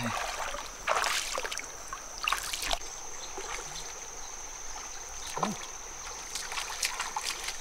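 Water splashing and swishing as a person wades through a shallow river, a few separate sloshing steps.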